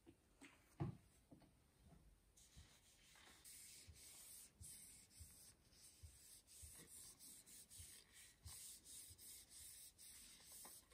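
Faint swishing of a cloth rubbing linseed oil into the wooden handle of a hatchet, in repeated strokes, after a few light knocks, the loudest about a second in.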